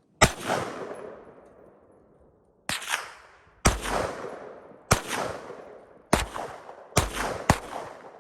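A 9mm gun fired seven times at an uneven pace, mostly about a second apart after a longer pause following the first shot. Each shot is followed by a long echo that dies away.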